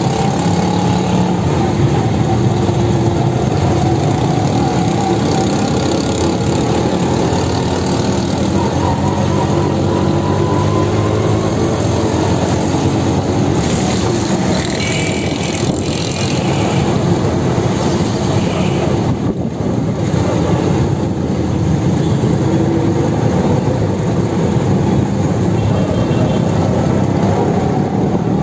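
Small engine of a motor rickshaw running steadily as it drives through traffic, its pitch rising and falling with the throttle.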